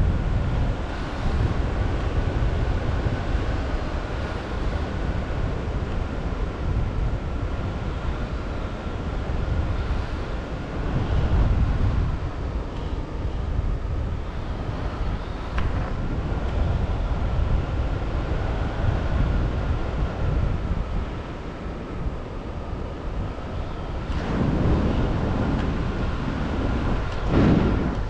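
Wind rushing and buffeting against the microphone in paraglider flight, swelling in gusts, loudest near the end. A faint steady high tone sits above it and wavers slightly in pitch.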